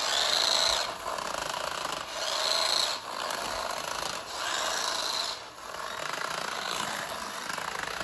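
Small battery-powered toy remote-control car running on a hard floor with the rubber stripped from its rear wheels: its motor and gears whirr and the bare wheels tick against the floor. It comes in spurts of one to two seconds with short dips between, as the car is driven.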